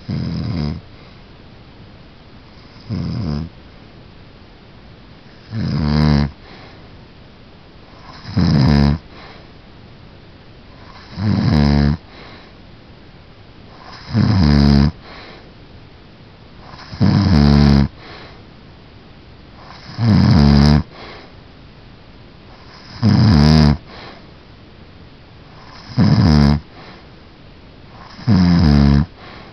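Snoring in a regular rhythm: about eleven snores, one roughly every three seconds, each lasting under a second, with quiet breathing between.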